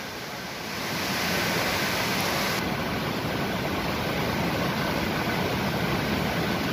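Steady rushing of a fast-flowing stream pouring over rocks, swelling a little about a second in.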